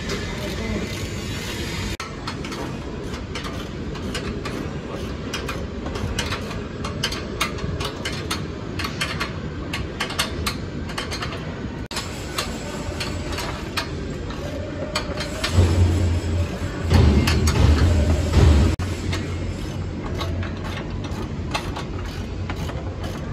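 Hand-tool work on a steel busway housing and its spring hanger: scattered metallic clicks and taps over a steady background noise. About two-thirds of the way through, a loud low hum comes in for about three seconds, in two spells.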